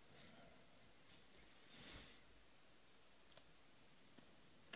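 Near silence: room tone, with one faint soft rustle about two seconds in.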